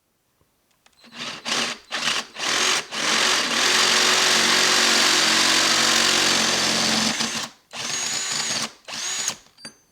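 Cordless drill motor triggered in short spurts, then held running steadily for about four seconds, then two more brief spurts near the end, its whine rising on each start.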